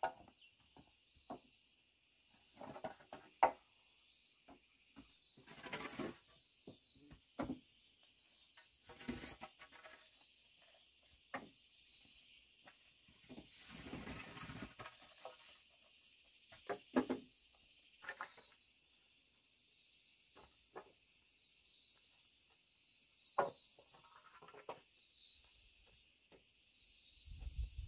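Bamboo poles knocking and clattering now and then as they are handled and stood against a bamboo frame, over a steady chirring of insects.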